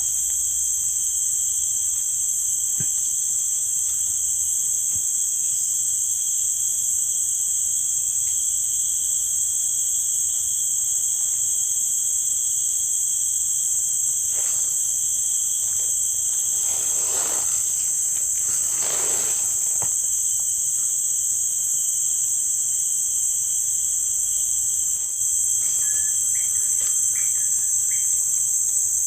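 Insects (crickets or cicadas) chirping in a steady, continuous high-pitched drone, with two brief swishing noises about two-thirds of the way through.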